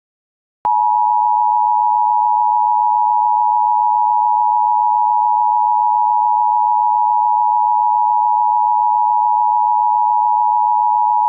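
Emergency Alert System attention signal: one loud, unbroken electronic tone that starts abruptly about a second in and holds steady. It is the alarm that announces the alert, here the tornado warning that follows.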